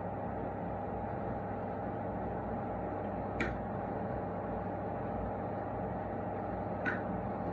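Steady hum of a mains-powered machine running, with two short clicks about three and a half seconds apart.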